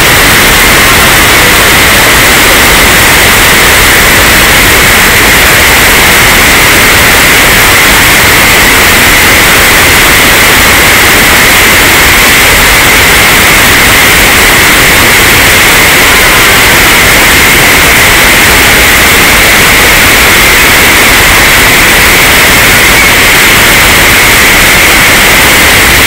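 Water pouring over a check dam, a loud steady rush.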